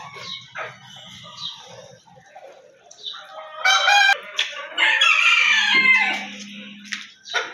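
Chickens in a flock: soft clucks and calls, then a rooster crowing loudly from about halfway in, lasting a few seconds.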